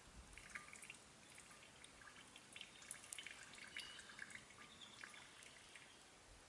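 Cooking oil poured in a thin stream into a clay pot heated over a wood fire: faint trickling with many small crackling ticks.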